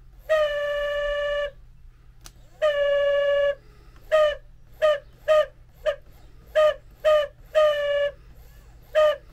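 A 1974 VW Beetle's DC wiper motor, run on the bench off a battery charger, whining at a steady pitch each time it is powered: two runs of about a second, then a string of short on-off bursts. The motor doesn't sound happy; the owner puts the trouble deep inside the motor rather than in the oiled top bearings.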